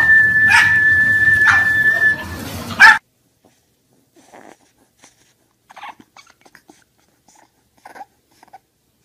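A dog whining in one long, high note held steady for about two seconds, ending with a short loud yelp about three seconds in. After that there are only faint, scattered small sounds.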